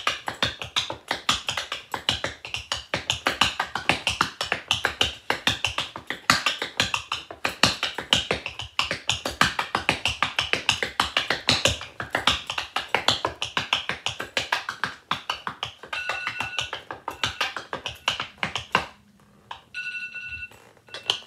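Rhythm tap dancing in tap shoes on a wooden floor: a fast, dense run of sharp taps that stops about nineteen seconds in. A brief ringing tone follows near the end.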